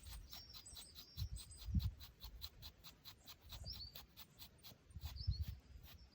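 A metal deshedding comb rakes through a dog's shedding coat in quick regular strokes, about four a second. Small birds chirp now and then, and the dog breathes in low puffs.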